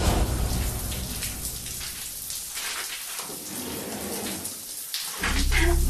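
Shower running, its spray hissing and splashing. Low, steady music comes in about five seconds in.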